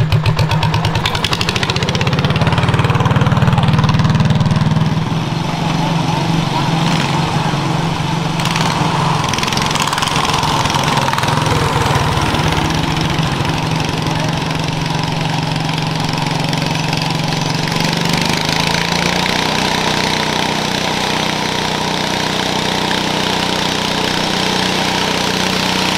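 Small garden tractor engines running. A loud engine runs close by for the first few seconds. After that a John Deere 212 garden tractor's single-cylinder engine runs steadily under load as it pulls a weight-transfer sled, with a thin whine over it.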